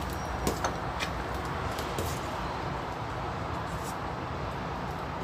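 Thickened liquid boiling in a stainless steel pot on a gas burner, with a spoon stirring through the glutinous rice balls; a few light knocks of the spoon against the pot in the first couple of seconds over a steady bubbling hiss.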